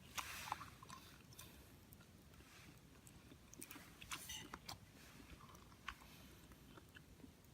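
Small wood fire crackling in a compact folding fire grill: faint, scattered pops and snaps over a low hiss.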